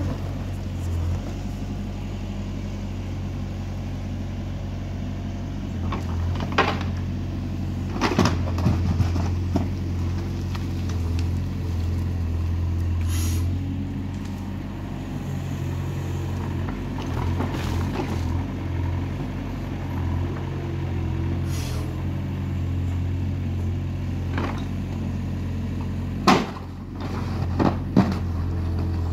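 Mini excavator's diesel engine running with a steady low hum as it digs, with scattered sharp knocks and scrapes as the bucket works through stony soil, several of them close together near the end.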